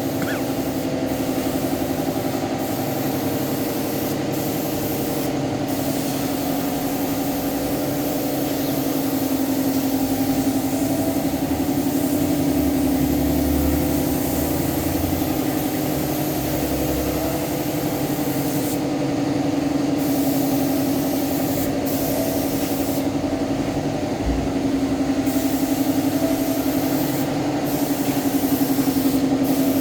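Spray gun hissing as car paint is sprayed, over a steady machine hum. The hiss drops out briefly a few times, most clearly near 19 s and from about 23 to 25 s, as the trigger is let go.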